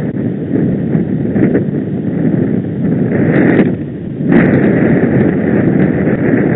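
Wind buffeting the microphone of a camera on a moving bicycle, a loud gusty rumble with a short lull about four seconds in.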